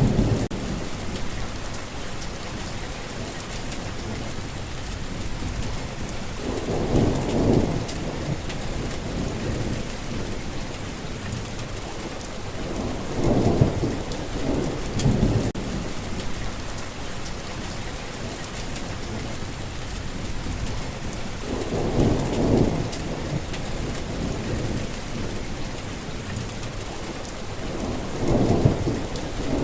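Steady rain falling, with low rumbles of thunder swelling up and fading about four times, roughly every six to eight seconds.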